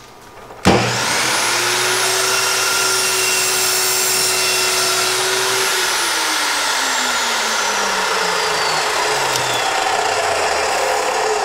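DeWalt DW872 14-inch metal-cutting dry-cut saw starting up with a sharp click about half a second in, then running with a steady high whine while it cuts an iron baluster to length. About halfway through, the whine starts to fall steadily in pitch as the blade winds down.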